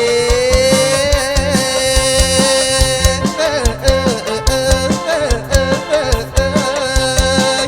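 Live kantrum band music: a steady drum-kit beat under a long held, wavering lead note that breaks into a bending melody after about three seconds.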